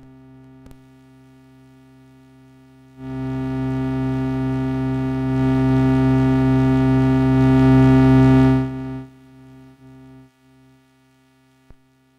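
Behringer Abacus function generator cycling as an audio-rate oscillator, giving a low, steady triangle-wave drone. It is faint at first, jumps much louder about three seconds in, rises a little further midway, then drops back to faint about nine seconds in.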